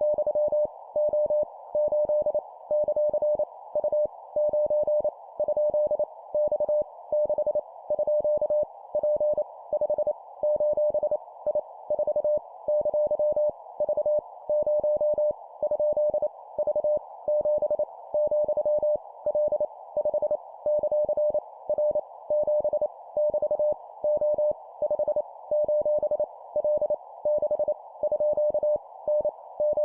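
Morse code (CW) practice signal at 25 words per minute: a single-pitch tone keyed rapidly on and off in dots and dashes, sending random letters, numbers and punctuation. It sits over a steady band of hiss, like a receiver's filtered band noise.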